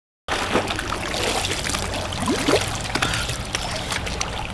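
Swimming-pool water sloshing and trickling around people standing in it, with small splashes and drips; it begins abruptly out of silence.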